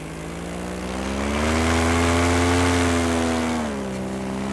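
Paramotor's two-stroke engine and propeller running in flight, throttled up about a second in, held higher, then eased back near the end.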